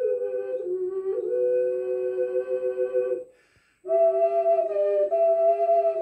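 Clay double ocarina (Cicada 2 model) playing two notes at once in harmony, held long and moving slowly from one pitch to the next. A short pause a little past halfway, then both voices come back in.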